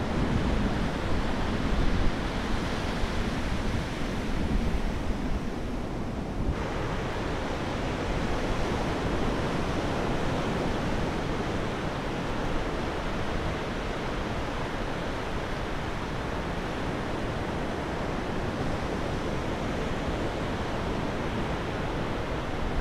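Waves breaking and washing up a flat sandy beach, a steady rushing noise, with wind buffeting the microphone.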